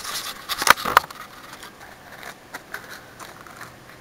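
Camera handling noise: rustling and two sharp knocks about a second in as the camera is bumped close up, then footsteps crunching on gravel.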